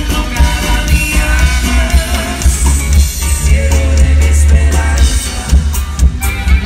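Live band playing on stage, with electric bass, drum kit and saxophone, heard loud from the audience with a heavy, boomy bass.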